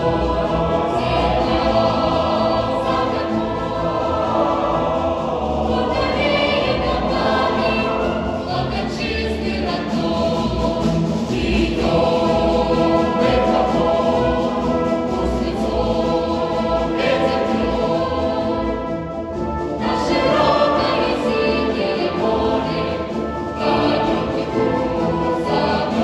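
Choir of young voices singing a march in Russian, accompanied by a naval military band.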